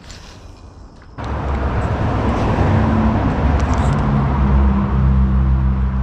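A motor vehicle's engine running close by, starting abruptly about a second in as a loud, steady low hum that shifts in pitch midway and then holds steady.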